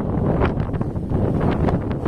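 Wind buffeting the microphone in irregular gusts: a loud, low rumble.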